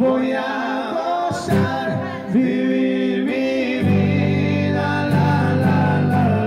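A song with a solo singing voice over instruments; a fuller, sustained low accompaniment comes in about four seconds in.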